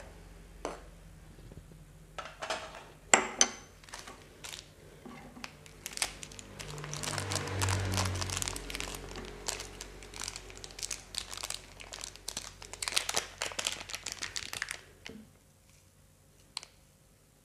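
A small plastic seasoning sachet crinkling as it is handled and opened, densely for several seconds in the middle. A few sharp knocks come in the first few seconds.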